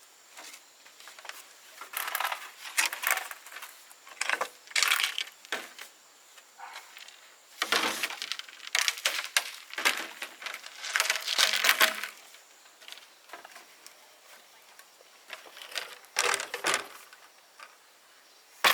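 Irregular clinks, scrapes and knocks of objects being handled, in short bursts with quiet gaps between them.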